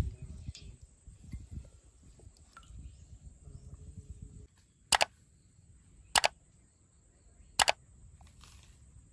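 Three sharp click sound effects, each a quick double click, coming about a second and a quarter apart, like the clicks that go with a like-subscribe-bell button animation. Before them there is a low, uneven rumble.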